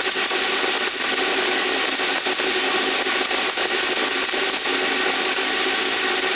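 Steady, continuous running-machinery noise with a constant hum, unbroken throughout.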